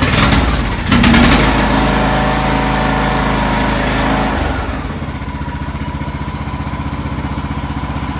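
Craftsman riding mower engine running just after starting, fast at first, then dropping to a lower, steady speed about four and a half seconds in. Its carburetor's choke flap does not return because the choke spring is broken.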